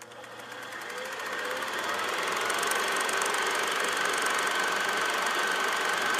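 Logo sound effect: a rapid mechanical clatter, swelling in over the first two seconds and then holding steady, with a faint steady tone underneath.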